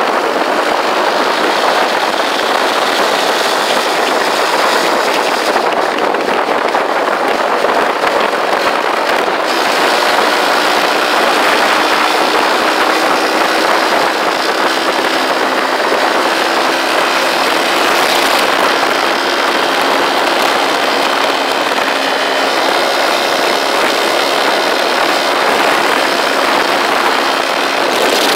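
Motorcycle riding at road speed: a steady rush of wind and road noise with the engine's drone underneath.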